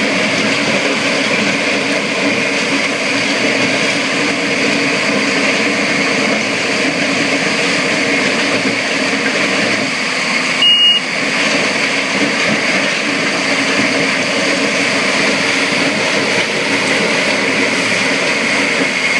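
Heavy machinery running steadily: a Takeuchi TL12R2 compact track loader working a Simex PL 450 planer attachment with an industrial vacuum, a steady high whine over the engine. A short high beep about eleven seconds in.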